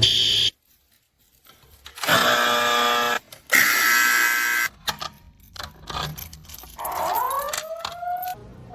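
Fire alarm sounder going off in separate buzzy blasts: a short one at the start, then two of about a second each with a brief gap between. A softer stretch with clicks and a rising whoop-like sweep follows near the end.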